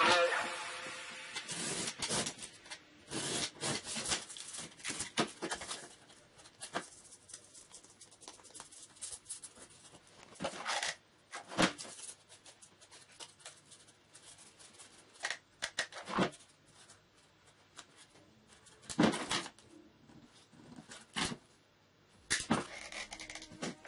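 Cardboard pieces and hand tools handled on a wooden workbench: scattered rustles, taps and clicks, a few of them louder.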